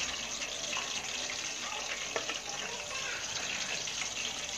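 Chicken kebab pieces deep-frying in hot oil: a steady sizzling hiss with fine crackles.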